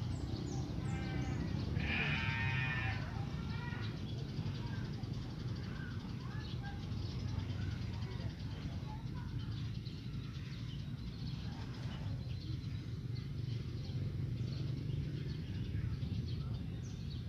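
A goat bleating: a quavering call about two seconds in, with shorter, fainter bleats just before and after it. A steady low rumble runs underneath, with a few small bird chirps.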